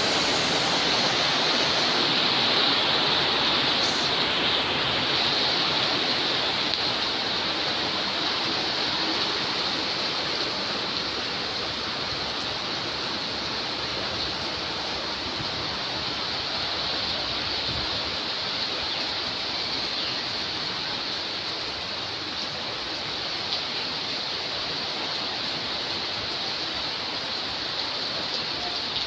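Heavy rain falling steadily, heard from under a corrugated metal roof: a constant hiss that eases slightly over the first several seconds.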